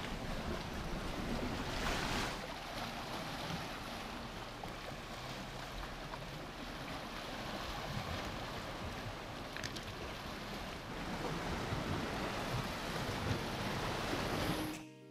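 Small sea waves washing against a rocky shoreline, a steady rushing with wind on the microphone.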